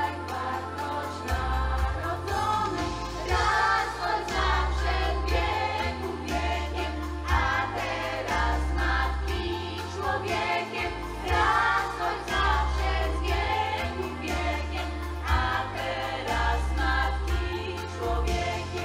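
Mixed group of women's and girls' voices singing a Polish Christmas carol through microphones over an instrumental accompaniment with long, deep bass notes.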